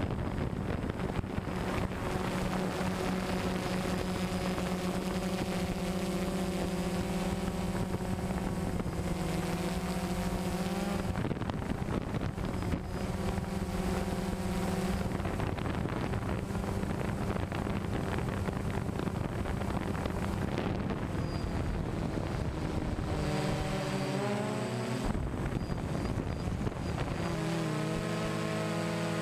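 DJI Phantom 1 quadcopter's motors and propellers buzzing steadily, heard through the camera mounted on the drone, with wind noise on the microphone. The pitch wavers and steps up and down several times near the end as the motors change speed.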